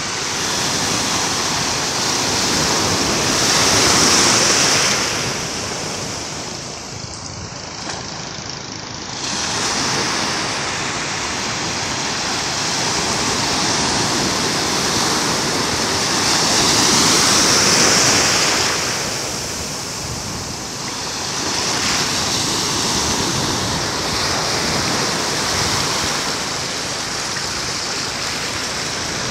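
Ocean surf breaking and washing up the shallows, swelling and easing every several seconds.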